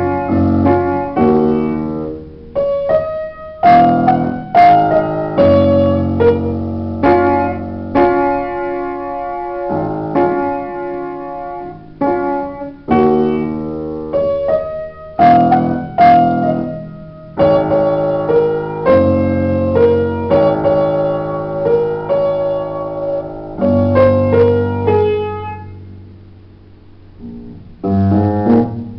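Solo upright piano playing a melody over chords. About three seconds before the end a held note dies away almost to quiet, then the playing starts again with loud chords.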